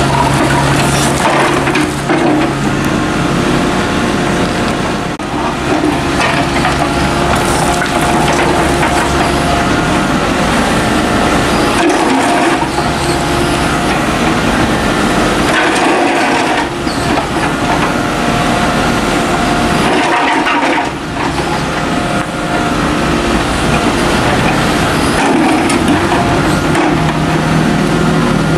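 Volvo EC55 mini excavator's diesel engine running steadily under load, while its bucket scrapes and crunches through dug-up soil and broken concrete rubble with many short knocks and cracks.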